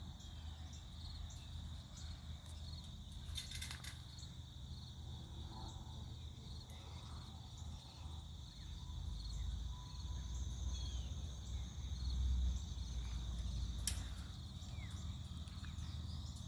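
Insects chirping steadily in a high, pulsing chorus.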